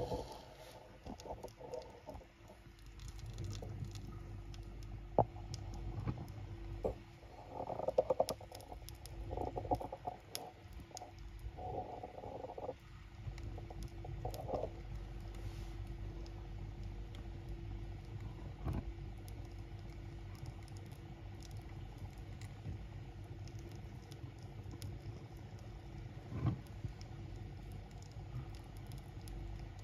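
Small fire of an oil-soaked egg-carton firelighter burning under split birch logs in a masonry bake oven with its door open: a low steady rumble of flame and draft with scattered faint crackles, and a few louder bursts of noise in the first half.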